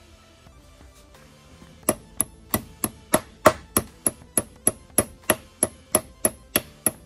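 Steel hammer tapping a roll pin into a Dana 44 differential carrier to retain the cross shaft. The sharp, ringing metal-on-metal blows start about two seconds in and repeat evenly at about three a second.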